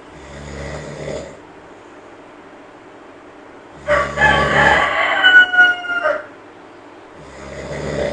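Sleeping monkey snoring, two short snores about seven seconds apart. Between them comes a much louder drawn-out call lasting about two seconds, with a clear pitch that dips slightly near its end.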